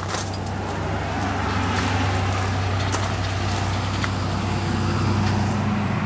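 Motor vehicle engine running with a steady low rumble; a higher engine tone joins in during the last couple of seconds.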